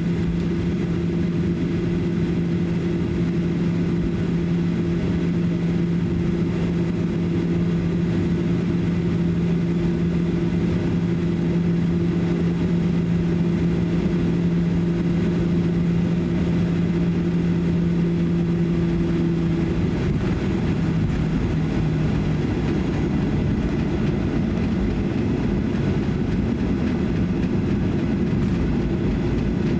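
Cabin noise of a Boeing 737-800 taxiing: a steady rumble and drone from its CFM56-7B jet engines at taxi power. The steady low hum in it wavers and breaks up about two-thirds of the way through.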